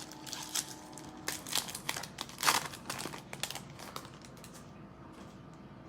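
Wrapper of an NFL Mosaic trading-card pack being torn open and crinkled: irregular crackles and tearing, loudest about two and a half seconds in, dying away after about four seconds.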